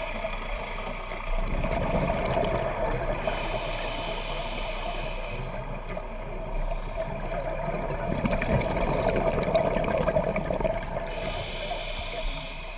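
Underwater sound of a scuba diver's regulator breathing: hissing and bubbling that swell and fade every few seconds over a steady muffled background.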